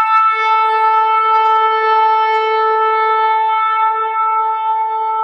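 Shofar blown in one long held blast at a steady pitch, the note slowly weakening near the end.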